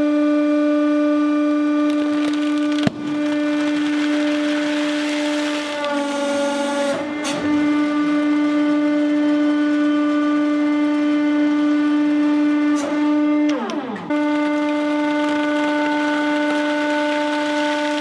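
Hydraulic press running with a steady, high humming drone, its pitch sagging briefly under load about six seconds in and again near fourteen seconds, while the ram slowly crushes a sealed bag with a few sharp cracks.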